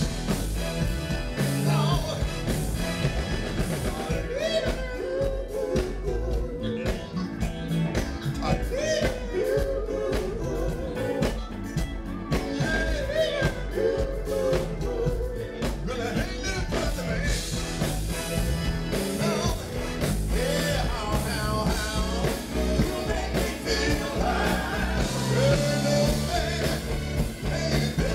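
A funk band playing live through a concert PA, heard from the audience: electric bass with drums, guitar and keyboards, and a man singing lead.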